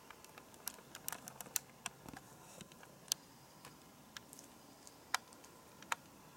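Irregular light clicks and taps from hands handling a leather belt, a quick cluster in the first two seconds and then a few scattered ones.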